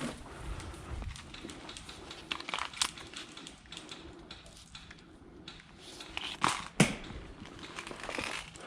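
Rustling and scattered clicks of an airsoft gas pistol and its magazine being handled while the magazine is charged with gas. A short hiss is followed by one sharp click about two-thirds of the way through.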